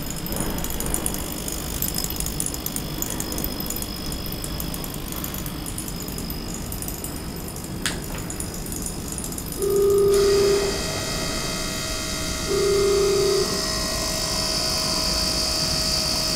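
Small ultrasonic cleaner switching on about ten seconds in, announced by a short beep. It then runs with a steady hissing buzz made of several fixed tones. A second short beep comes a couple of seconds after it starts. Before that there is only background hiss and a single click.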